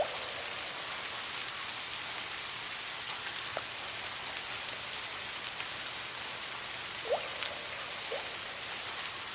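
Steady soft rain hiss, with a few separate water drops plinking now and then, a couple of them near the end.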